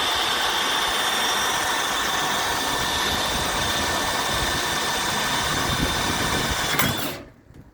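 Power tool motor running steadily with a high whine for about seven seconds, then stopping abruptly.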